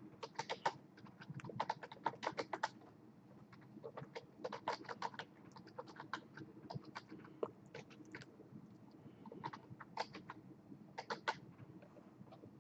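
Computer keyboard being typed on, in several short bursts of keystrokes with brief pauses between them.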